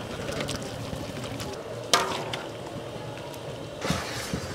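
Diced tomatoes tipped from a steel pot into a large steel cooking pot of meat, with one sharp clank and a short ring about two seconds in. Near the end, water starts pouring from a large plastic bottle into the pot.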